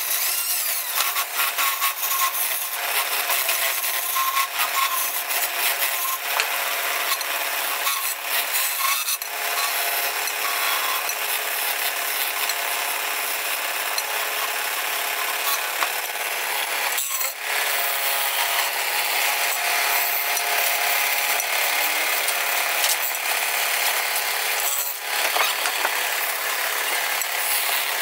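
Wood lathe spinning a rolling-pin blank while a hand-held chisel cuts into the wood, making a continuous scraping hiss. The cutting breaks off briefly twice, once past the middle and once near the end.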